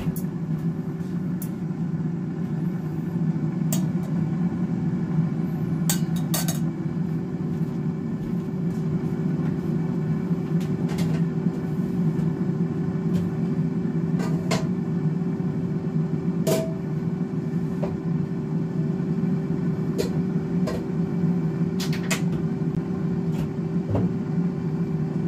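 Instant Vortex air fryer preheating, its fan running as a steady hum with a constant tone, with occasional light clicks.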